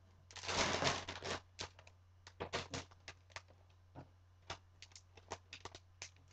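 Plastic zip-top freezer bag crinkling as it is handled and held open: a longer rustle in the first second or so, then scattered short crackles.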